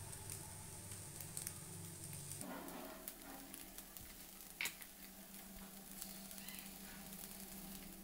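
Faint sizzling of potato-and-egg fritters frying in a little oil in a nonstick pan, with a few light clicks, the clearest about four and a half seconds in.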